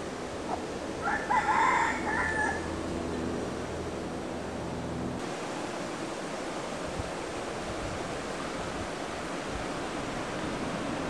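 A rooster crowing once, about a second in, over a steady outdoor hiss.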